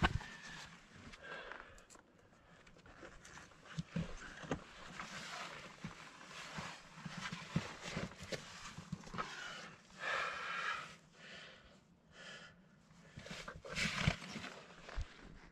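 A climber's breathing, with irregular scrapes and knocks of boots and hands on rock while downclimbing a rocky ridge.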